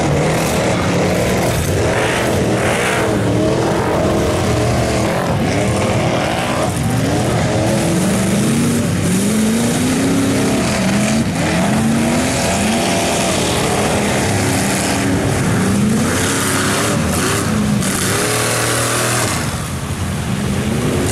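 Square-body Chevy mega mud truck's engine revving hard, its pitch climbing and dropping again and again as the tyres churn through a mud bog, with the hiss and splatter of flung mud and water throughout.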